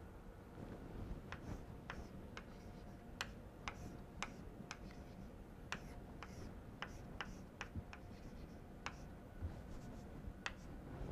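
Chalk writing on a blackboard: a string of faint, sharp, irregular taps and clicks as the chalk strikes and drags across the board while an equation is written.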